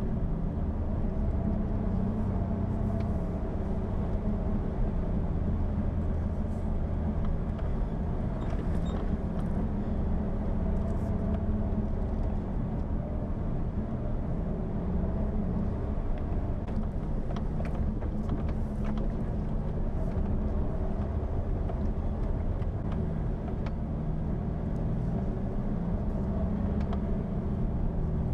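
Jeep Wrangler engine running steadily while driving a rough dirt track, with a low rumble and scattered faint clicks and knocks.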